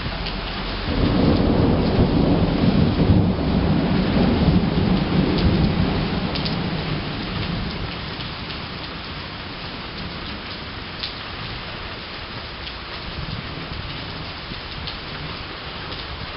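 Rain falling steadily, with a roll of thunder that rumbles up about a second in and fades away over the following several seconds.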